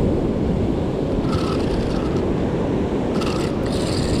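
Steady low rumble of strong wind buffeting the microphone, mixed with surf washing on the rocks, with brief higher hissing in the middle and near the end.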